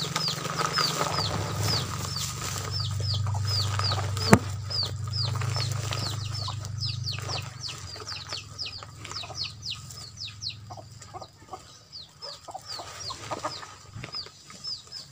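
Birds chirping steadily, a stream of short, falling high chirps several times a second. A low hum fills the first half, and there is a single sharp knock about four seconds in.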